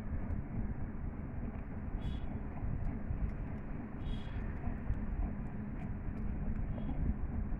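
Steady low background rumble with a few light clicks and two brief rustling sounds, like wires being handled on a bench.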